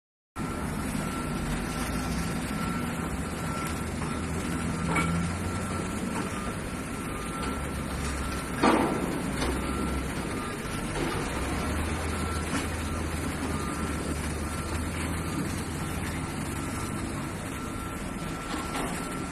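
A reversing alarm on heavy site machinery beeping over and over, over a steady low engine rumble and general yard noise. About nine seconds in, a single loud bang stands out above it.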